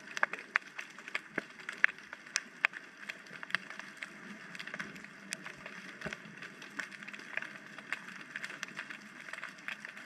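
Underwater ambience picked up through an action camera's waterproof housing: many irregular sharp clicks and crackles, several a second, over a steady hiss.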